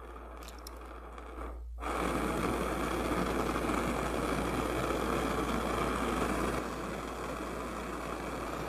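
Propane hand torch burning with a steady hiss as its flame heats the end of a copper pipe for soldering. The hiss comes in suddenly about two seconds in and drops slightly in level near the end.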